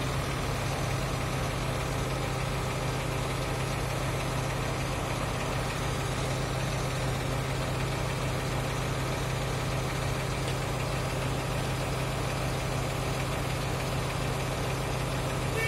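Mobile crane's diesel engine running steadily at a constant speed with a low, even hum while it holds a load on its hook.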